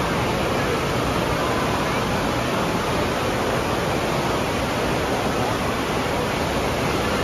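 Steady rush of churning water pouring out of an enclosed tube water slide into its splash-down run-out lane.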